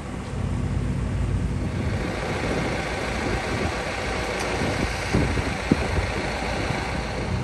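Steady low rumble and hiss of a parked Airbus A321 airliner on the ground, the hiss growing louder about two seconds in, with a few short knocks around five to six seconds in.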